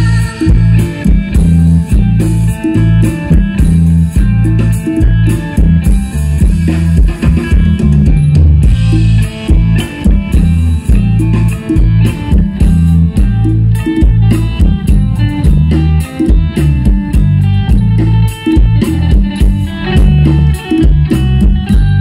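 Live amplified music from an Isan pong lang band: a drum kit keeping a steady beat under electric bass and guitar, with folk melody instruments on top.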